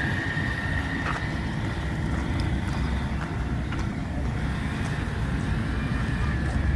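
A large engine running, a steady low rumble.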